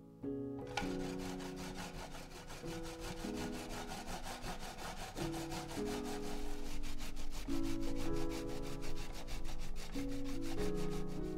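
Carrot being grated on a grater: fast, regular rasping strokes that start about a second in and stop near the end, over background piano music.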